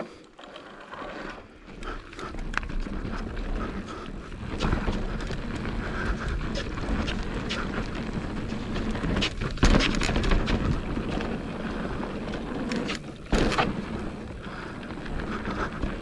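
Mountain bike riding down a dirt trail: tyres rolling over dirt and rock, with wind on the microphone and the bike rattling and knocking over rough ground. Two sharper jolts come near ten seconds and about thirteen seconds in.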